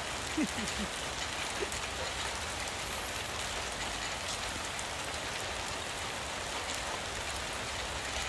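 Steady rain falling, an even hiss without pauses.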